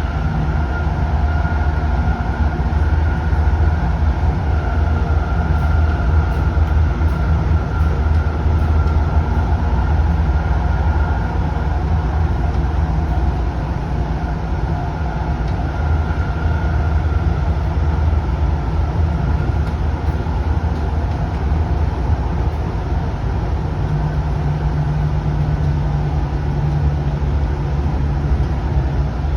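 Sound Transit Link light-rail train running at speed, heard from inside the passenger car: a steady low rumble, with a faint high whine through roughly the first half.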